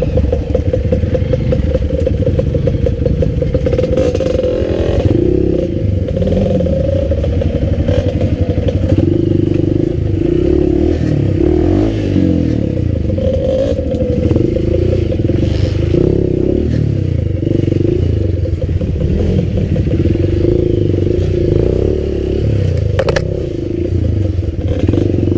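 Enduro dirt bike engine running on a rough trail, its pitch rising and falling with the throttle, with a few sharp knocks from the bike over the rocky ground.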